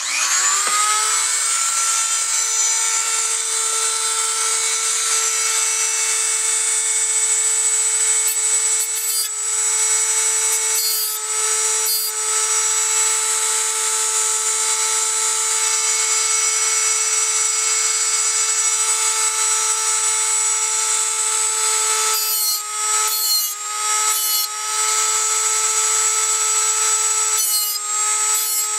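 Dremel rotary tool with a flexible-shaft extension spinning a cutoff wheel: it spins up at the start and runs at full speed with a steady high whine. The wheel is dragged in light strokes along the steel teeth of a bow saw blade to sharpen them; several short grinding passes, mostly in the last third, each pull the pitch down slightly.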